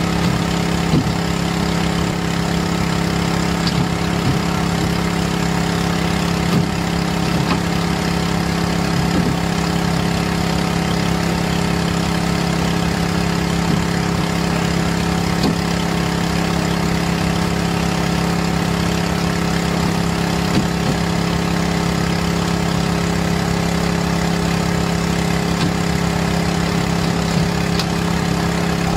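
Fishing boat's engine running steadily, a constant low drone, with faint knocks now and then.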